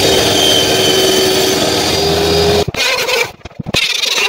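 Woodworking power machine running with a steady whine, stopping abruptly about two and a half seconds in; then a few sharp wooden knocks as boards are handled.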